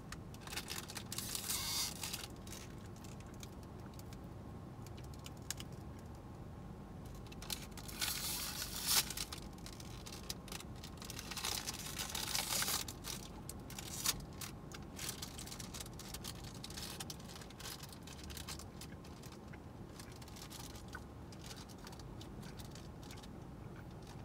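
Steady hum of a car idling with its air conditioning running, heard inside the cabin. Over it come quiet chewing, scattered small clicks and a few short bursts of crinkling from a plastic protein-bar wrapper, about 1, 8 and 12 seconds in.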